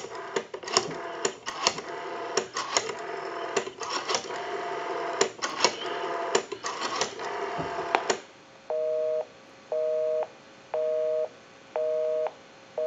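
Western Electric 500 rotary telephone being dialed, its rotary dial clicking irregularly for about eight seconds as the digits go out. Then a busy signal on the line, a two-tone beep about once a second.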